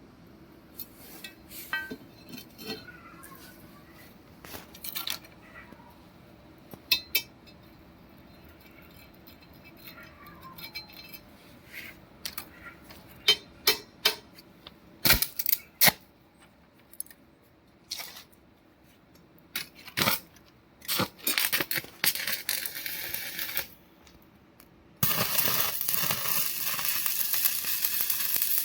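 Metal pieces clinking and knocking as they are handled and tapped, then the steady crackling hiss of a stick-welding arc, which starts about 25 seconds in after a shorter burst of it a few seconds earlier.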